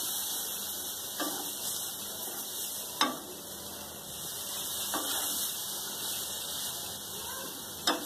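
Flour-and-onion mixture sizzling steadily in a hot metal pan as milk is poured in a little at a time and stirred with a plastic spoon. A few sharp knocks of the spoon against the pan, the loudest about three seconds in.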